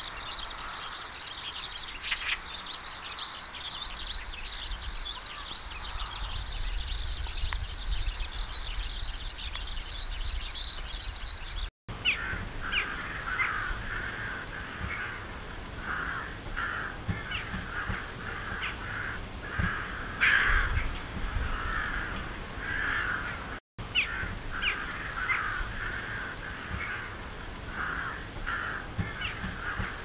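Three corvid recordings in turn, separated by two brief silent cuts. First a dense, continuous high chattering in the Eurasian magpie recording. About twelve seconds in, a flock of rooks gives repeated short caws, about one or two a second. About twenty-four seconds in, Daurian jackdaws give short calls in the same way.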